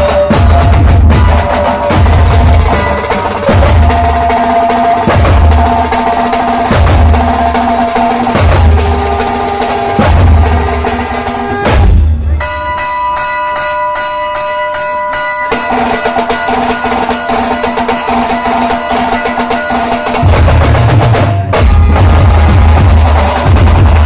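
Loud dhol-tasha band music: heavy bass drum beats repeating every second or two under a melodic line. About halfway through the drums stop for a few seconds, leaving only held notes. The melody then resumes, and the heavy beat comes back near the end.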